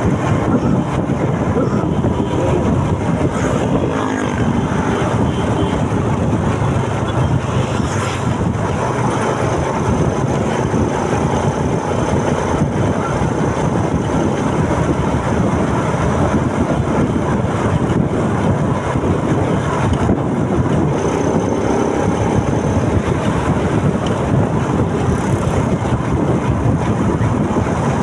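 Motorcycle under way: steady engine noise mixed with wind rushing over the microphone.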